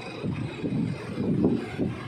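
A low, wavering rumble of background noise that rises and falls in level, with no distinct clicks or tones.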